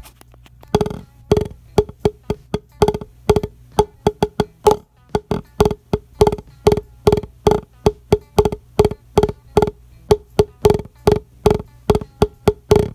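Wooden drumsticks tapping on a Vater 12-inch single-sided soft practice pad: a steady run of dull, slightly pitched taps at about three a second, some in quick pairs, starting about a second in.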